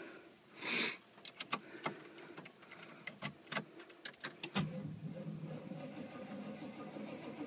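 Small clicks and rattles of keys and switches in a 1992 Chevrolet pickup's cab, then about four and a half seconds in a faint steady low hum begins.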